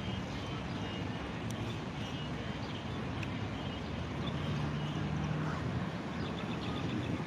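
Outdoor background ambience: a steady wash of noise with a faint hum of distant traffic and a few faint high chirps.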